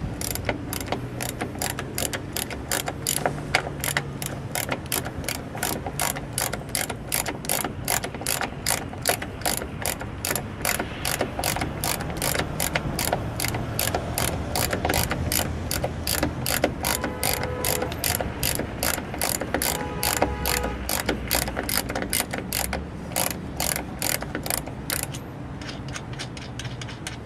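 Ratchet wrench clicking steadily as it backs the factory nut off a Yamaha outboard's lower unit, a long even run of sharp clicks.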